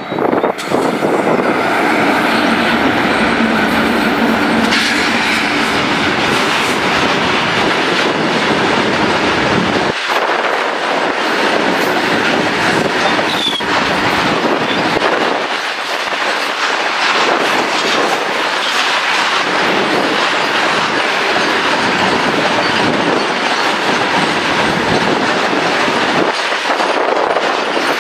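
A long loaded coal freight train passes behind two electric locomotives. There is a steady hum from the locomotives for the first few seconds, then a continuous rumble and clatter of wagon wheels over the rail joints, with a brief wheel squeal about halfway through.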